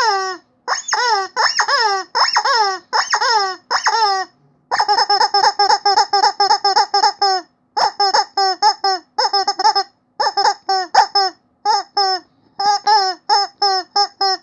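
Chicken squeaky toy squeezed over and over, each squeak a short call that drops in pitch. The squeaks come in runs, some slower and some quick and tightly packed, broken by short pauses.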